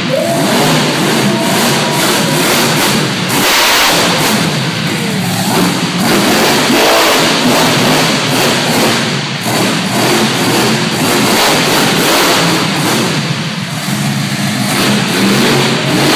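Monster truck engine running loud, revving up and dropping back again and again as the truck drives around the dirt arena.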